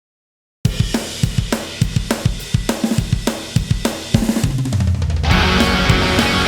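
Rock music track starting after a moment of silence: drums alone at first with a steady beat, then heavy guitars coming in about five seconds in.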